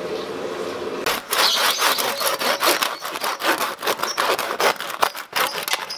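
A hand saw sawing through the crisp roasted skin of a whole roast pig, in quick scratchy back-and-forth strokes that start about a second in.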